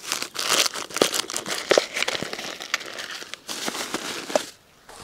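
Irregular crinkling and rustling with many small clicks, stopping about four and a half seconds in.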